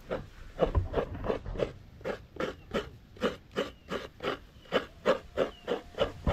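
Coconut being grated by hand: steady scraping strokes, about three a second.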